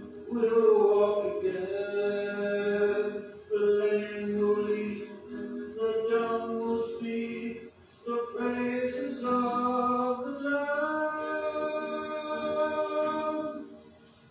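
A man singing a slow song solo in long held notes, accompanying himself on acoustic guitar. His singing stops near the end.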